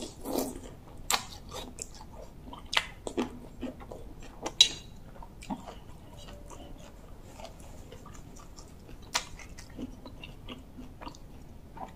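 A person chewing and eating spoonfuls of bamboo-shoot soup with vegetables. Scattered wet mouth smacks and crunches come thickest in the first five seconds, then grow sparser.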